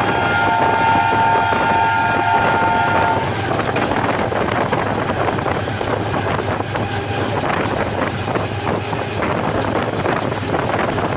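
A train horn sounds a steady chord that stops about three seconds in, over the rumble and clatter of a moving train, with wind on the microphone.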